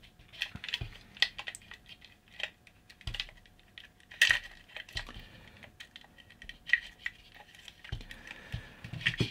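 Small irregular clicks, taps and scrapes of plastic and metal parts as a shaver socket's plastic faceplate is eased apart from its metal transformer housing, the sharpest click about four seconds in.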